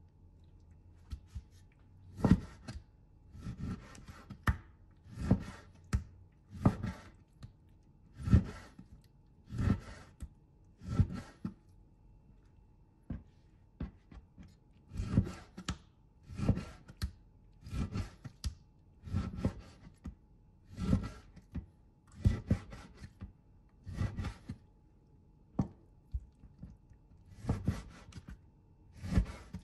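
Kitchen knife cutting through pork belly on a chopping board, each cut ending in a sharp knock on the board, about one cut every second and a half with a short pause partway through.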